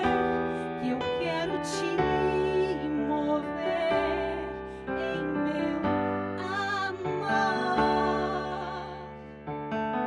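A woman singing a slow Christian worship song into a microphone, with vibrato on held notes, over a keyboard accompaniment.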